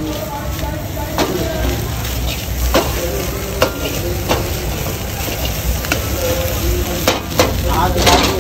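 Steel ladle scraping and knocking against a wok as fried rice is stir-fried, the rice sizzling in the hot pan. Irregular sharp knocks of the ladle on the steel rise above a steady low rumble.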